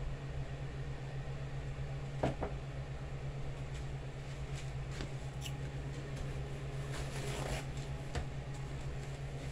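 Steady low hum of household room tone, with a few light knocks and clicks: the sharpest knock comes about two seconds in, and a short rustle about seven seconds in.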